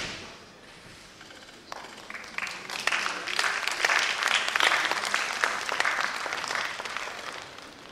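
Audience applauding: a crowd's clapping begins about two seconds in, swells to a full round of applause and dies away near the end.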